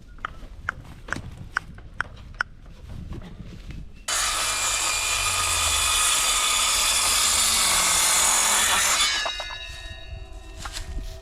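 A few sharp taps, then an electric power saw cutting through wood for about five seconds. The cut starts abruptly and is the loudest sound. Steady ringing tones linger after it as the tool winds down.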